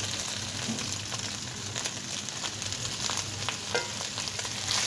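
Shredded boiled chicken sizzling in hot oil in a wok with browned garlic and sugar, a steady sizzle full of small crackles. This is the chicken's second cooking, fried to crisp it.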